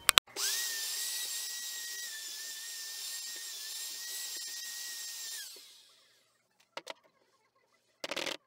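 Einhell electric plunge router running over a wood slab: after a couple of sharp clicks, a steady high whine that winds down and stops about five and a half seconds in. Near the end, a short brushing sound as a hand sweeps dust off the wood.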